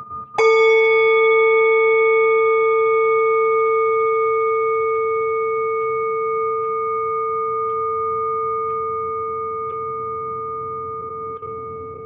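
A singing bowl struck once, about half a second in, over the fading ring of an earlier tone. It then rings on with a low main tone and several higher overtones, slowly fading.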